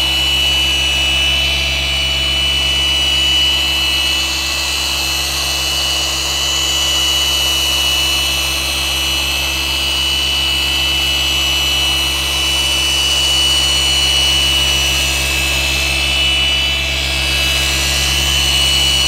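Rupes LHR 21 long-throw random orbital polisher running at a constant speed, its wool pad working polishing compound over a painted boat hull. A steady high whine over a low hum.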